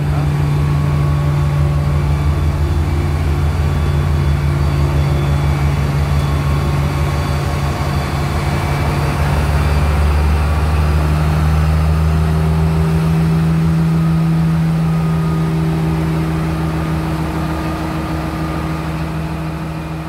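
Diesel locomotive engine running steadily, a loud low drone with a slight rise in pitch about twelve seconds in.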